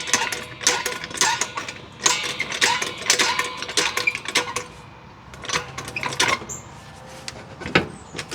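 Irregular sharp metallic clinks and knocks of tools working on steel suspension parts: several a second at first, then thinning to a few spaced strikes in the second half.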